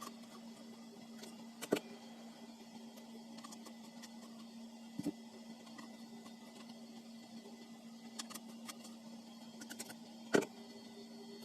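A few sharp clicks and knocks of hands working at a plastic speaker casing, the loudest near the end, over a steady low hum.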